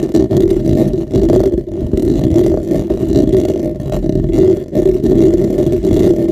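Fingertips scratching and rubbing directly on a condenser microphone's grille, heard right on the mic as a loud, dense, rumbling scratch with brief dips between strokes.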